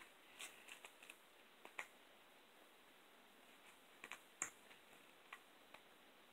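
Faint, scattered light clicks and taps of plastic coffee capsules being handled and set down on a rug, the loudest about four and a half seconds in.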